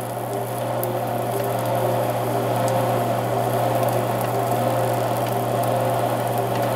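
Presto Pizzazz rotating pizza oven running: a steady appliance hum as the tray turns, with light sizzling of the food on the hot pan, slowly growing louder.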